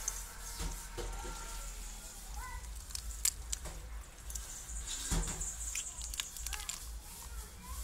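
Scattered sharp clicks and wet handling noises as hands work a live crab's shell, the loudest clicks about three and five seconds in, over a low steady rumble.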